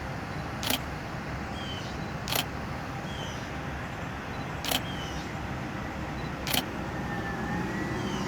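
Four camera shutter clicks, spaced about two seconds apart, as pictures are taken over a steady hum of passing road traffic. A faint siren wail starts near the end.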